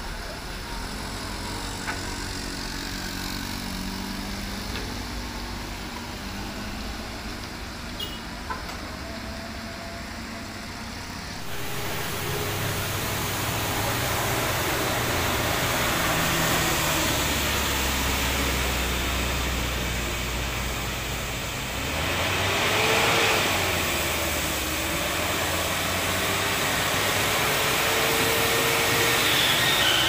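Heavy diesel vehicles taking a steep hairpin bend: a box truck's engine running first, then, after a sudden change about eleven seconds in, the louder engine of a coach turning the bend, with a faint pitch that rises and falls near the end.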